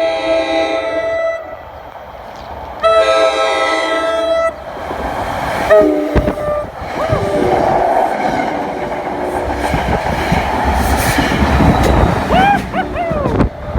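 NJ Transit express train sounding its horn in two long blasts and a shorter one. The train then passes through the station at speed, its rumble growing louder toward the end as the coaches and trailing PL42AC diesel locomotive go by.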